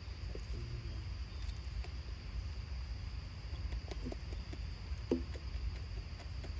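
Outdoor background: a steady low rumble under a steady high insect drone, with scattered faint ticks and a brief sharper sound about five seconds in.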